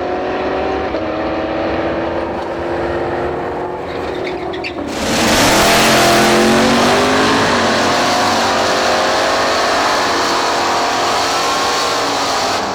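Drag race car engine running at low revs, then suddenly opened to full throttle about five seconds in. The engine note climbs under a loud, rough blast that carries on to the end.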